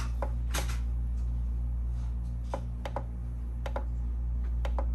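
Irregular small clicks of buttons being pressed on the Weeylite Sprite LED fill light's controls, about ten in all, some in quick pairs, over a steady low hum.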